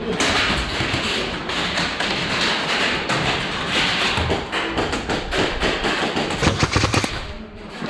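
Clicks and knocks of close-quarters airsoft play, dense throughout, with a cluster of sharper knocks about six and a half seconds in.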